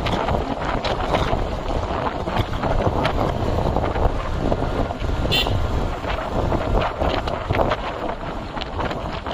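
Wind buffeting the microphone over the steady rumbling noise of a moving motorbike, with a short high beep about five seconds in.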